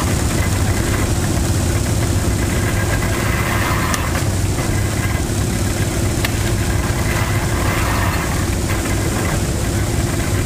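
Old engine idling steadily, with an even low hum.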